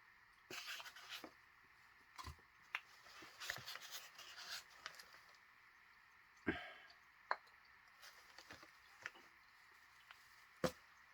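Faint rustling and crackling of packing material being handled while a shipping box is unpacked, with a few sharp knocks of containers being set down or bumped, the loudest two about six and a half and ten and a half seconds in.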